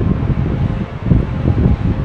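Wind buffeting the microphone: a loud, gusty low rumble that rises and falls unevenly.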